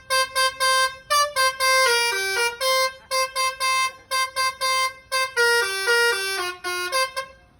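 Basuri V3 telolet bus horn playing its melody: a string of short repeated toots on one note, broken by quick runs of notes that step down in pitch. It stops about seven seconds in.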